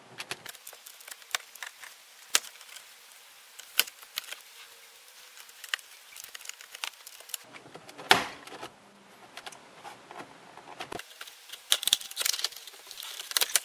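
Plastic dash trim panel on a 2008 Honda Odyssey being pried loose from its retaining clips with a plastic pry tool: scattered sharp clicks and scrapes, a louder snap about eight seconds in, and a cluster of clicks near the end.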